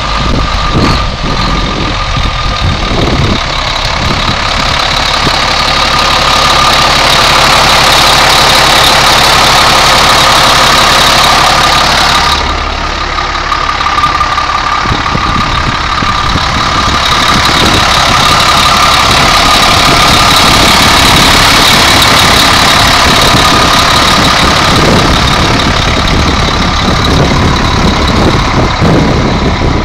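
Cummins M11 inline-six turbo diesel of a 1996 International 8100 truck idling steadily, with a brief dip in level about twelve seconds in.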